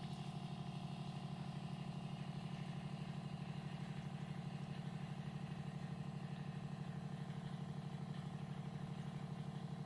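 Itehil portable reverse osmosis water purifier's pump running with a quiet, steady hum and a fast, even pulse, now pushing water through the RO filter.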